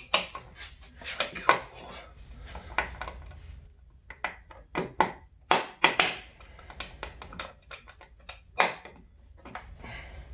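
Irregular sharp metallic clicks and clinks of bolts and small hardware being handled and threaded in by hand against the snowmobile's metal chassis, over a low steady hum.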